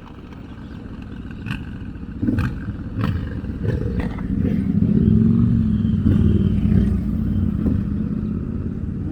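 Motorcycle engine running and revving, growing louder over the first five seconds, with a few sharp clacks in the first half.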